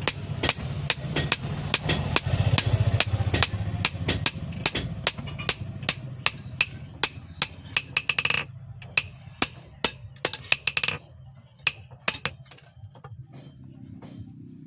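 Hand hammer striking steel on an anvil, forging a knife blade from a file, in a steady rhythm of about three blows a second. A low steady hum runs under the blows. After about eight seconds the hum drops away and the blows turn sparse.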